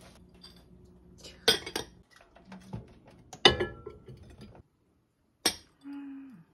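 Glass bowl and glass lid clinking as they are handled and set on a microwave's glass turntable: three sharp clinks with lighter ticks between, the loudest about three and a half seconds in. A brief low hum near the end.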